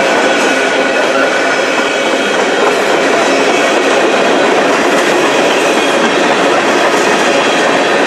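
Covered hopper cars of a freight train rolling past close by: a loud, steady rush and rattle of steel wheels on the rails, with some clickety-clack.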